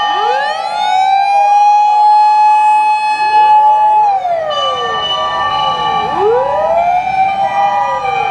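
Several emergency-vehicle sirens wailing at once as fire-department vehicles drive past. The wails overlap: each rises, holds a steady high note, then falls away, with one winding down about four seconds in and others rising again a second or two later.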